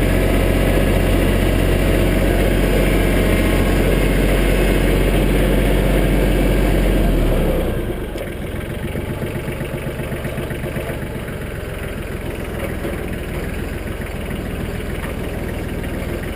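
Mahindra Max 25 compact tractor's diesel engine running with the RPMs raised, driving the front-mounted snowblower through the mid PTO. About eight seconds in the sound drops suddenly and the engine settles to a quieter, lower steady run.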